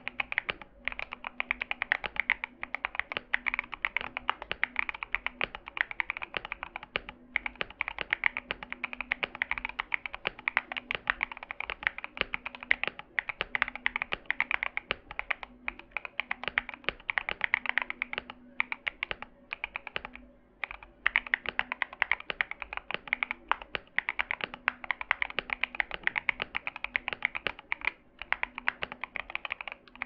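Fast, continuous typing on a Tofu65 mechanical keyboard fitted with long-pole tactile switches (Qwertykop Musetsu), each keystroke a creamy, poppy clack. The typing breaks off for a moment about two-thirds of the way through, then carries on.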